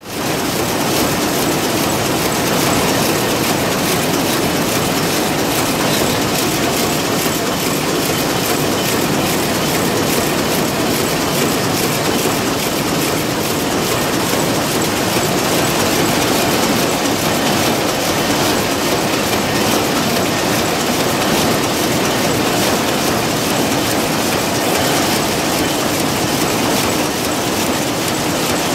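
Amar rapier loom with an electronic jacquard weaving at speed: a loud, steady, rapid mechanical clatter.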